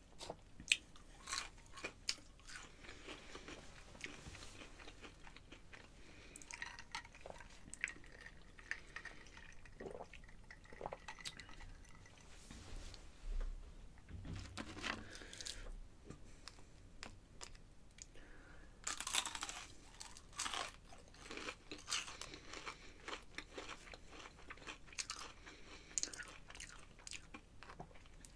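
A person chewing and crunching crispy breaded chicken strips and seasoned fries close to the microphone: irregular sharp crunches, with a louder run of them about two-thirds of the way through.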